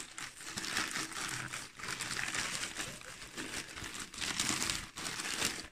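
Plastic postal mailer bag crinkling in uneven rustles as it is handled and opened by hand.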